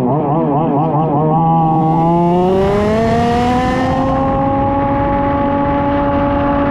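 A 1/5-scale petrol RC Formula 1 car's two-stroke engine. It warbles rapidly up and down at first, then revs up steadily for about three seconds and holds at high revs as the car accelerates on wet tarmac, with a brief hiss midway.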